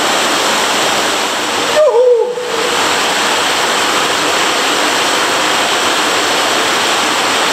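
Steady, loud rush of water in an underground cave stream, heard close. About two seconds in it breaks off briefly under a short vocal sound.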